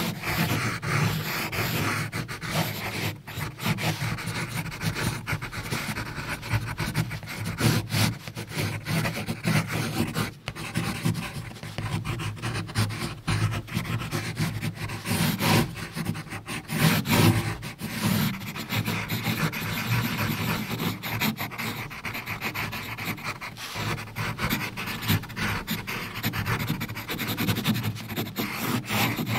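Pencil drawing freely on paper: a continuous run of quick scratchy strokes of graphite across the sheet, some longer and firmer than others.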